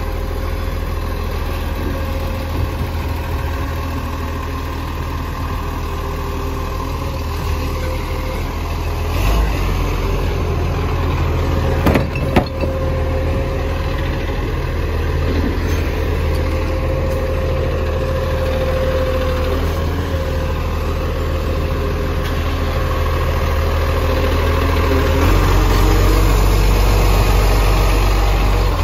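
Dennis side-loader garbage truck's diesel engine idling and running up close, with a sharp knock about twelve seconds in. The engine gets louder in the last few seconds as the truck's hydraulic lifting arm reaches out for a wheelie bin.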